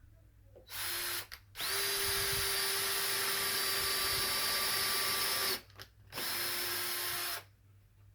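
Power drill pre-drilling screw holes through a melamine rail into a wooden baseboard: a short burst, then about four seconds of steady running with a high whine, a brief pause, and a final run of just over a second before it stops.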